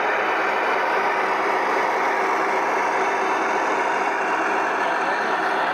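Large-scale model Railion diesel locomotive's sound unit playing a steady diesel engine running sound as the model runs along the track.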